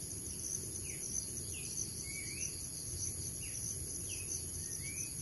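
Insects shrilling steadily in a high continuous buzz, with short whistled bird notes, some sliding down and some sliding up, repeating about every half second. A low rumble sits underneath.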